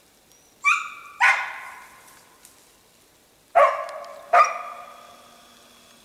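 Hunting laika barking, four loud barks in two pairs, each trailing off in an echo: a laika baying at a squirrel it has found up a tree.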